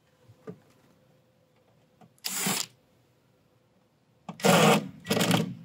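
Cordless drill-driver backing out the Phillips-head screws of a control panel in short runs of about half a second: once about two seconds in, then twice close together near the end. A couple of faint clicks come before the first run.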